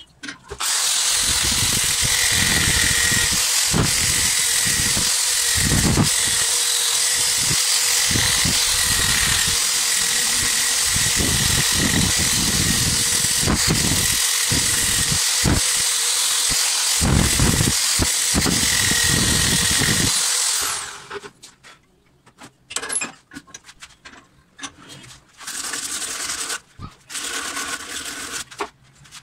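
A homemade grinder's spinning abrasive disc grinds rust off a steel tap wrench clamped in a vise, running as a loud, steady whine with a grinding hiss. It stops about twenty seconds in and is followed by scattered handling and wiping sounds.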